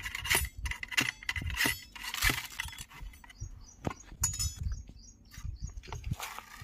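Ramrod pushed and worked down the barrel of a muzzle-loading gun to seat the charge: scraping and metallic clinks. Fewer, scattered clicks follow as the gun and a small container are handled.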